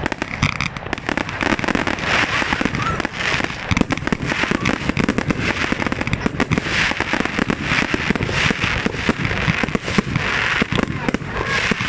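Fireworks going off in a rapid, unbroken barrage: shells launched from the ground one after another, with bangs and crackling bursts overhead.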